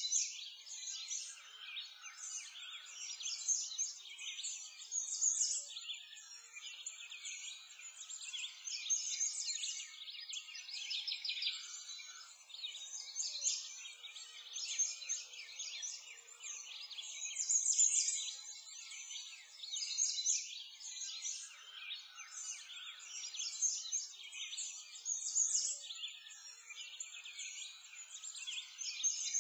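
Many birds chirping and singing together: a steady chorus of quick, high calls, with nothing low beneath it.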